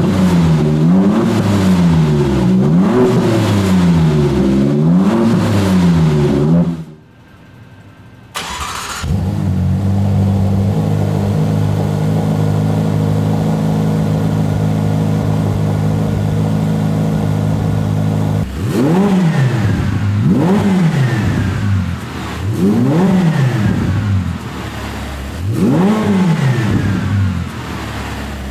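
Supercar engine being blipped repeatedly, its pitch rising and falling, before it cuts off abruptly. About a second and a half later an engine fires up on a cold start and holds a steady fast idle, is blipped four times, and then settles to a lower idle near the end.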